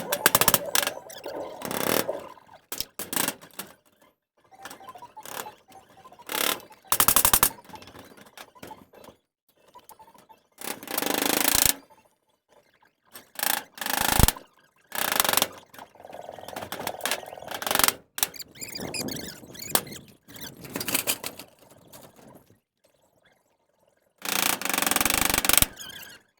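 Irregular hammer blows and metallic bangs and rattles from nailing down sheet-tin roofing, with short pauses between bursts.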